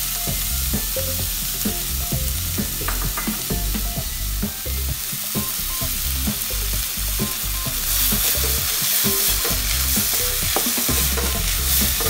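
Chopped onions sizzling in a little melted butter in a hot kadai, with a wooden spatula scraping and stirring them against the pan.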